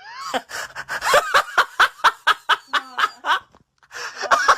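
A person laughing in quick, repeated bursts, pausing briefly about three and a half seconds in, then laughing again.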